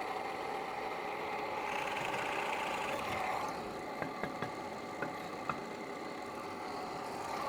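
A small motor running steadily, with four light clicks a little past the middle.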